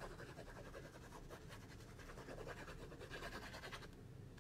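Faint scratching and rustling of cardstock and paper layers being handled and pressed together during card-making.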